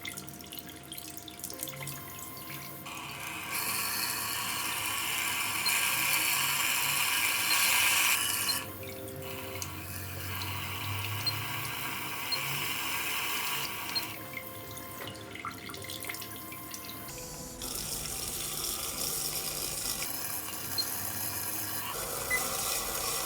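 Water running and spraying in several stretches of changing force, with a low hum partway through.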